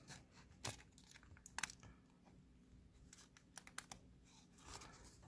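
A few faint, scattered clicks and scrapes from a screwdriver bit turning in a stripped Phillips screw in a brass padlock body. The bit is slipping in the worn-out screw head.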